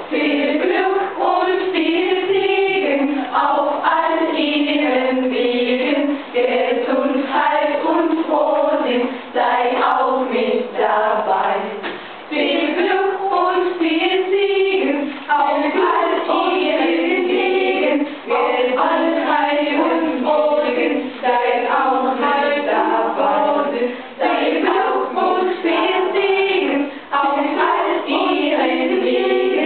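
Choir of young women singing a song together, the singing starting right at the beginning and running on steadily.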